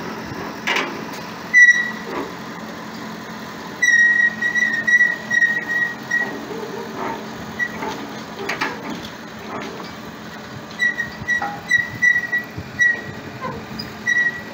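A telehandler's engine running as it tows a sailboat on a wheeled steel boat cradle, with a high metallic squeal from the cradle's wheels coming and going in short squeaks, and a few clunks as it rolls over the concrete.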